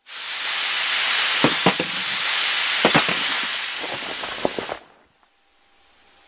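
Cartoon sound effect: a loud, steady hiss with scattered crackles and pops, lasting nearly five seconds and then fading away.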